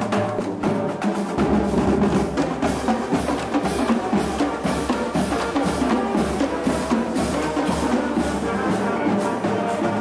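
Marching band drumline playing a street cadence: snare drums, tenor quads, Pearl bass drums and crash cymbals beating a steady march rhythm.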